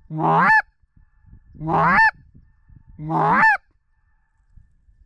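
Goose call blown three times, about a second and a half apart. Each is a low note that breaks sharply up into a high honk, imitating a goose to draw flocks toward the decoys.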